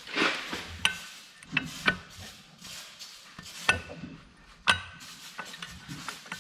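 Metal clinks, knocks and scraping of a churn drill's main-shaft clutch parts being handled, with a few sharp clicks, the loudest about four and a half seconds in.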